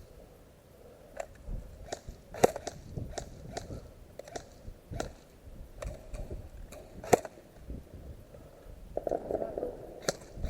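Airsoft guns firing single shots: irregular sharp clicks and snaps, two of them louder, about two and a half and seven seconds in, over low rustling.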